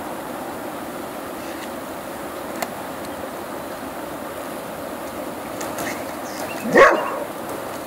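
A dog gives a single short, sharp bark or yelp near the end, over a steady rushing background noise.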